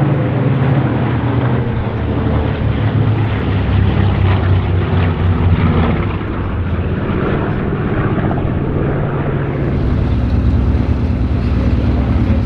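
Propeller-driven aircraft engine droning steadily as the plane flies a display pass, its pitch shifting about six seconds in and deepening near the end.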